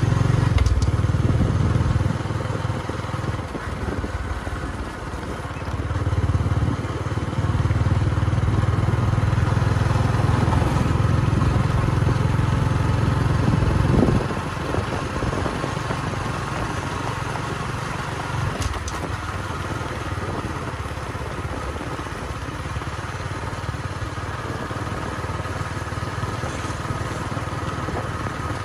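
Motorbike running along a road, its engine droning under a heavy low rumble of wind and road noise that swells and dips, then settles lower about fourteen seconds in.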